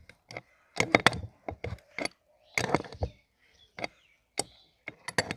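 Adjustable wrench working the greasy hub nut of a New Holland tractor's front wheel: a run of sharp, irregular clicks and knocks as the wrench is turned and shifted on the nut.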